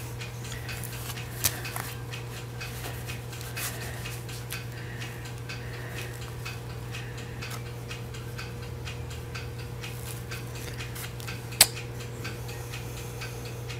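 Quiet room tone: a steady low hum with scattered faint clicks, a small click about a second and a half in and a sharper one near the end.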